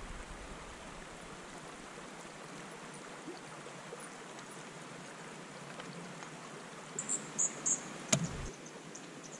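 Steady hiss of a small creek flowing over stones, with a few short high chirps near the end and a single sharp knock about eight seconds in.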